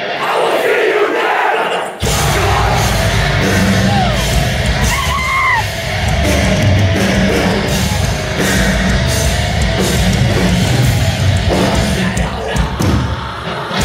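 Metalcore band playing live, with heavily distorted guitars, bass and drums and screamed vocals, recorded from within the crowd. The low end is absent for about the first two seconds, then the full band comes back in heavily, with audience yells over the top.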